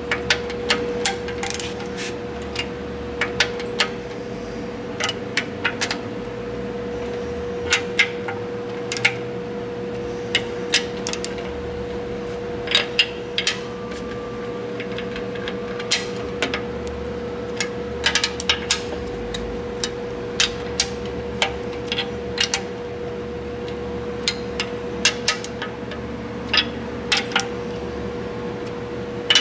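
Torque wrench with a 14 mm socket ratcheting and clicking as it tightens the cylinder head bolts on a 1.3L Suzuki Samurai engine in stages, with scattered sharp metal clicks and clinks. A steady hum runs underneath.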